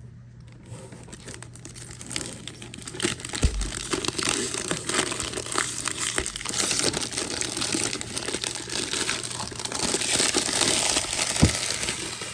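Packaging crinkling, crumpling and tearing as it is unwrapped by hand, with a couple of brief low thumps as the package is handled.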